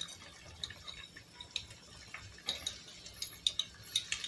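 Stainless steel pot of spinach and minced-meat stew heating toward the boil, with faint, scattered small pops and ticks from the bubbling liquid.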